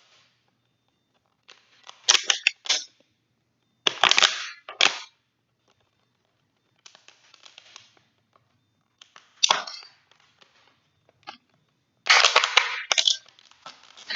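Thin plastic water bottle crackling and popping in about five short bursts as it is gripped and a blade is pushed through it to make small incisions.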